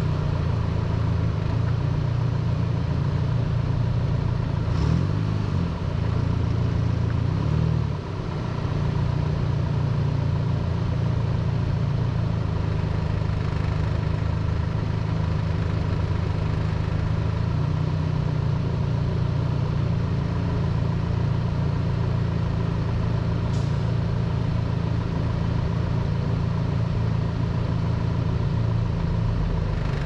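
Car engine and exhaust with road noise at a steady cruise, picked up close to the road by a camera on the tow hook: a low steady drone. Its pitch shifts briefly about five and eight seconds in, with a short dip in level at the second shift.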